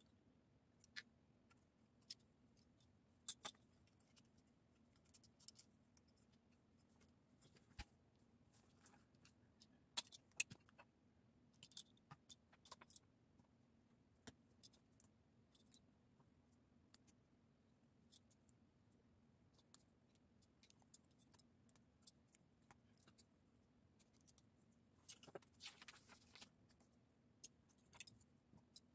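Plastic Lego bricks clicking and clattering as they are picked from a loose pile and pressed together. The clicks are scattered and come a few at a time, with a sparser stretch in the middle and a short run of rustling clatter near the end.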